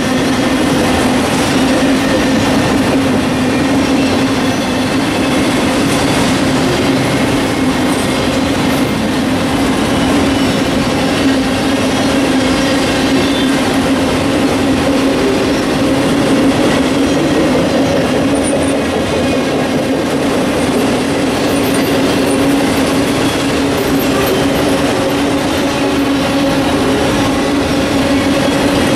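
Freight train of autorack cars rolling past at steady speed, steel wheels running on the rails with a steady droning tone over the noise.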